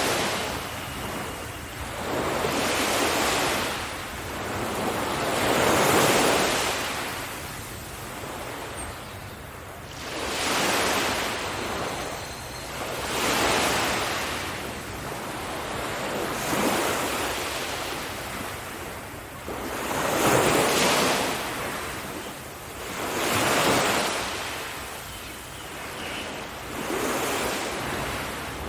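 Ocean waves breaking on a beach, the surf swelling and washing back in a steady rhythm, one wave about every three seconds.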